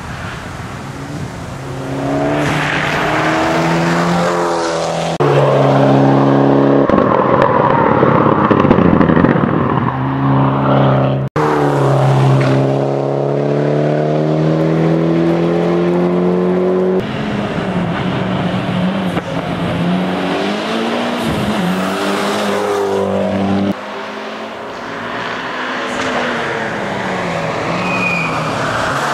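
Turbocharged 2.0-litre four-cylinder of a Mitsubishi Lancer Evolution X race car, driven hard through corners: the engine note climbs and drops again and again as it revs, lifts off and changes gear, in several separate passes.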